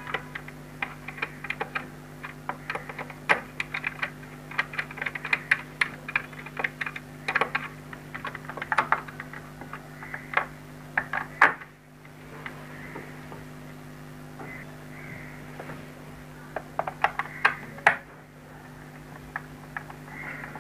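Small screwdriver tightening the screws of a plastic extension-reel casing: a run of quick clicks and scrapes of tool and hands on the plastic, which stop about 11 seconds in and come back briefly near the end.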